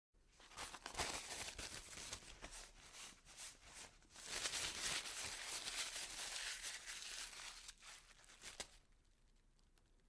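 Paper being crunched up, a dense crackle of many small crinkles in two long spells, the second starting about four seconds in, with the last few crackles near the end before it falls quiet.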